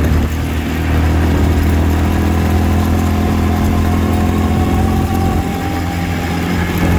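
Small vehicle's engine running at a steady speed while driving along a dirt track, a continuous even hum with no revving.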